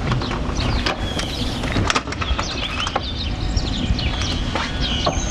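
Small birds chirping and twittering, many short chirps, over a steady low outdoor rumble, with a few sharp clicks.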